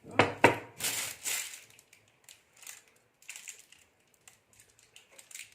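Handling sounds while decorating: two sharp clicks, then about a second of rustling, then scattered light taps and rustles.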